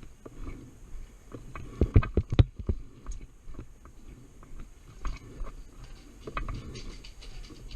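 Irregular sharp clicks and knocks over a low rustling, the loudest cluster about two seconds in.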